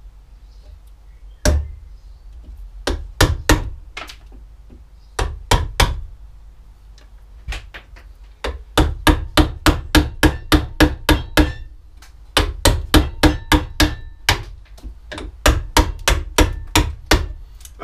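Hammer striking a wood chisel, chiselling waste out of a wooden board down to a marked line. A few single blows at first, then runs of quick strikes at about four a second, with short pauses between the runs.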